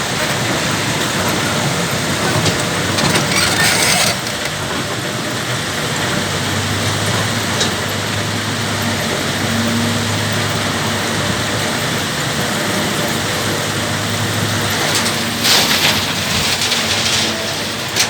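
Caterpillar 320 GC excavator's diesel engine running under a steady rumbling din, with gravelly crunching and pouring as aggregate base material is scooped and dumped, loudest about three seconds in and again near the end.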